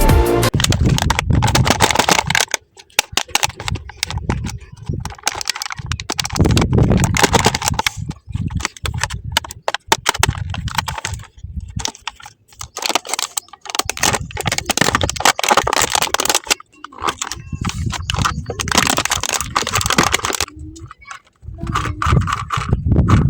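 Irregular clicking, crackling and scraping of small parts being handled and worked by hand, in uneven bursts with short pauses.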